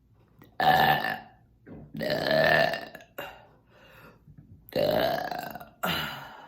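A woman burping four times in a row, the second burp the longest at about a second. The burps are brought up by drinking carbonated sparkling water.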